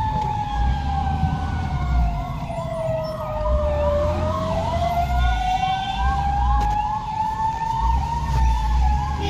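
Fire engine sirens sounding together: a slow wail that falls over about four seconds and climbs back, layered with a fast warbling siren sweeping two to three times a second. Low engine rumble from the moving trucks sits underneath.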